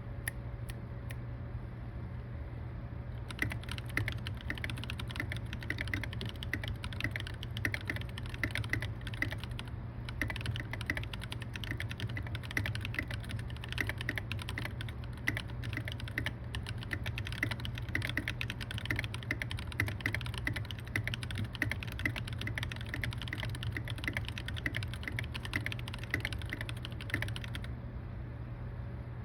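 Typing on a custom RK61 mechanical keyboard with factory-lubed Mint Choco Chip switches, lubed Everglide Panda stabilizers, and a case dampened with EVA foam and Flex Seal. A fast, continuous run of keystrokes starts about three seconds in and stops near the end, over a steady low hum.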